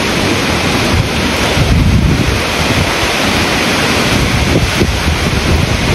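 Hurricane wind and heavy rain: a loud, steady rushing noise, with gusts buffeting the microphone.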